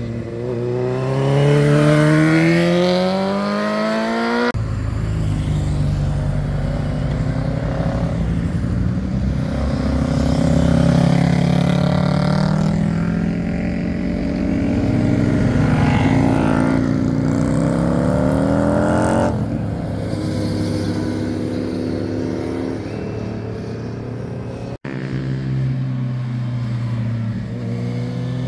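Motorcycle engines passing one after another through a hairpin bend, their pitch rising as each accelerates out of the curve. Hard cuts between riders come about four seconds in, again around nineteen seconds and near the end. The stretch in the middle is a lower, rougher engine sound from a pair of cruisers.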